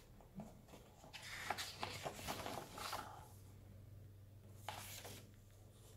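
Paperback book pages turned by hand: a soft rustle of paper with small clicks, then another brief rustle later on.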